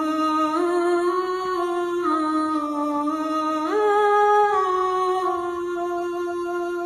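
Eerie intro music: a slow, wordless hummed melody, one voice holding long notes that step and slide up and down.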